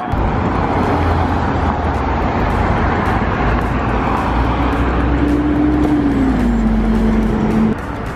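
City road traffic: cars driving past with a steady low rumble. About six seconds in, one vehicle's engine note falls in pitch, and the traffic sound cuts off abruptly near the end.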